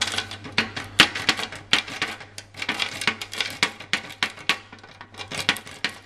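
Steel wafer rake scraping and clicking in a mailbox wafer lock, a rapid irregular rattle of sharp metal clicks several a second as the wafers are raked without a tension wrench.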